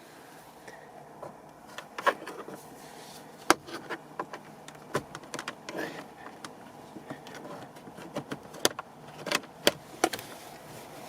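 Plastic steering-column top cover being worked loose by hand: irregular clicks, small knocks and creaks of the trim as its clips are released.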